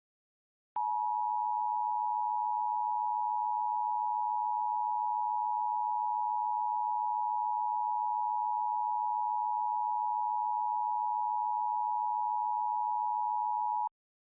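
Emergency Alert System attention signal: a steady, unwavering two-tone chord that begins about a second in, holds for about thirteen seconds, then cuts off suddenly.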